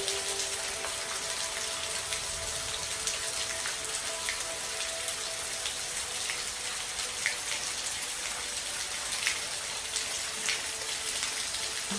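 Steady rainfall: an even hiss of rain with individual drops ticking sharply here and there. Faint held music tones sit under it in the first part and fade out.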